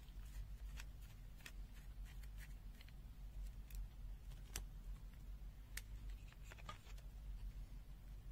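Faint, irregular light clicks and ticks as small plastic parts of a disassembled multimeter are handled, over a low steady hum.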